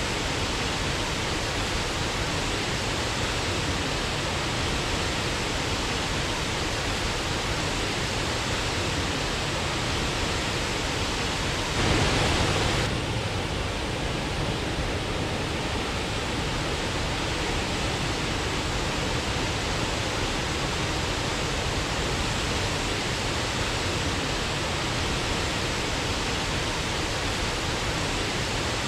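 Waterfall: a steady rush of falling water. About twelve seconds in, it briefly swells louder for about a second.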